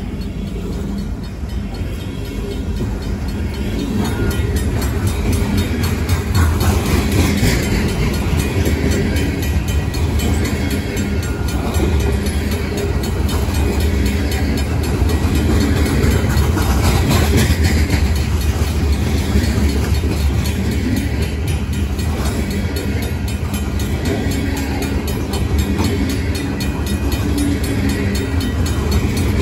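Covered hopper cars of a Union Pacific grain train rolling steadily past at the crossing, a continuous rumble of wheels on the rails.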